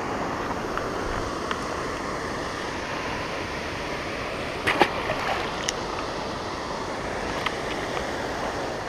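Steady rushing noise of wind on the camera's microphone beside the water, with a few sharp handling clicks from the fish grip and scale, the loudest about five seconds in.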